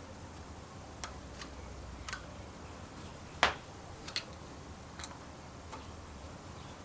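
Scattered light clicks and taps of small parts or tools being handled, at an uneven pace, with one sharper click about halfway through.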